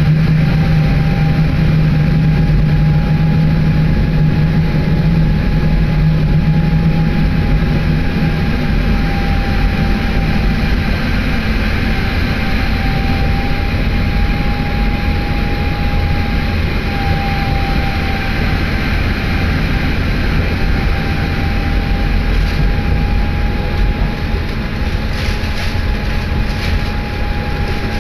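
Diesel railcar running along the line, heard from inside the car: a steady low rumble of engine and wheels on rail with a faint steady whine. A strong engine drone eases off about eight seconds in, and a few faint clicks come near the end.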